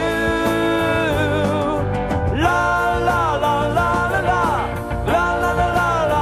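Gospel band music: long held, wavering melody notes, likely sung, over a steady band backing.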